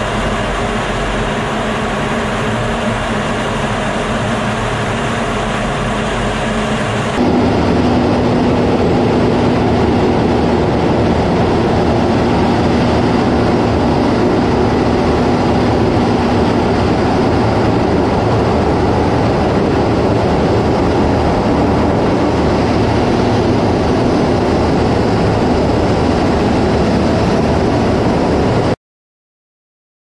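Steady in-flight cockpit noise of a jet fighter: engine and airflow rush heard from inside the cockpit. About seven seconds in it switches to a louder, deeper rush with a faint steady hum for several seconds, and it cuts off abruptly near the end.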